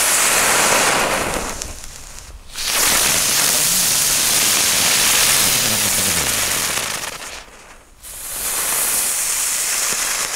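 Cranky Chick ground-spinner firework spewing sparks with a loud, steady hiss in three bursts of a few seconds each, with short gaps between them. A faint wavering tone runs under the middle burst.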